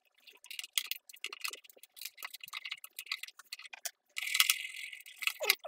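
Small irregular clicks and crinkles of vinyl stickers and their backing paper being handled and peeled. About four seconds in comes a denser scraping stretch as scissors cut the sticker sheet, and a short squeak comes right at the end.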